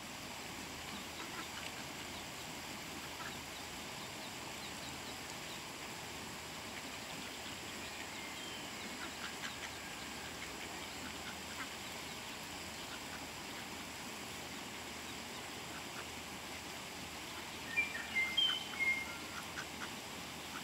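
Ducklings peeping: short, high-pitched calls scattered throughout, with a louder burst of peeps near the end.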